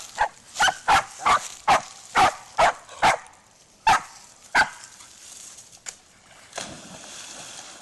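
A dog barking in quick, sharp barks, about a dozen in the first four and a half seconds, eager for a stick to be thrown. Near the end comes a splash as a dog leaps into the river.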